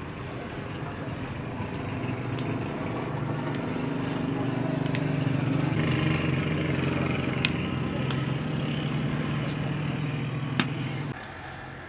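Large aluminium pot at a rolling boil over a wood fire: a steady low rumble that grows louder in the middle and eases near the end, with a few light clicks of the ladle.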